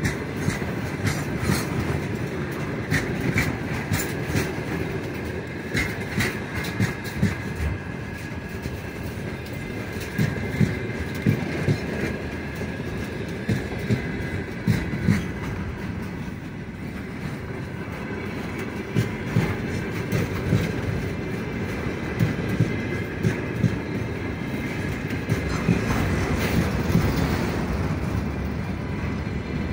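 Freight train wagons (tank cars, boxcars and enclosed auto-rack cars) rolling past close by. The wheels clack over the rail joints in a repeating rhythm above a steady rolling rumble.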